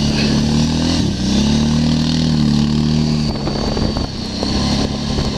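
ATV engine running, its pitch dipping and climbing again about a second in, then dropping to a lower, steadier speed after about three seconds.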